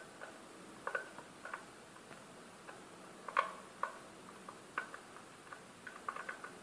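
Irregular small clicks and taps of a screwdriver on the terminal screws and connectors of a submersible pump starter's terminal block, as the connections are checked for tightness. The loudest click comes a little past halfway.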